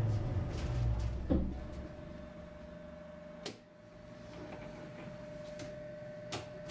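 Inside a Duewag M6D tram: a low rumble ends with a thump about a second and a half in, then a steady electrical hum with a single tone while the tram stands, broken by sharp clicks, as the red folding passenger doors swing shut.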